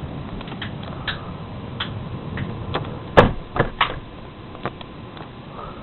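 Steady rain of a thunderstorm, with scattered sharp taps and knocks over it; the loudest are three knocks in quick succession a little past halfway.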